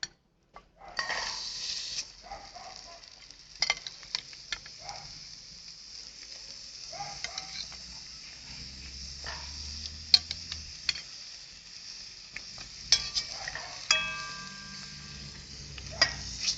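Pieces of rooster frying in hot oil in a pot over a wood fire, sizzling steadily as they brown. The sizzle starts about a second in, and there are scattered sharp clicks and knocks of a utensil against the pot.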